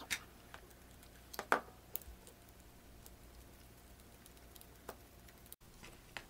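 Scattered small clicks and taps of a screwdriver and metal Meccano parts being handled while a pivot bolt is screwed in, the sharpest about a second and a half in, over a faint steady hum.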